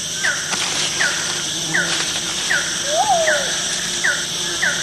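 Rainforest night chorus: a short falling chirp repeats about every three-quarters of a second over a steady insect hiss, with one lower call that rises and falls about three seconds in.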